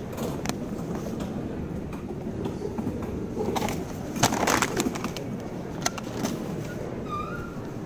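Food-soiled plastic and a paper bag being dropped into a public trash bin: a loud rustle and knock about halfway through, with a few sharp clicks around it, over a steady background hum.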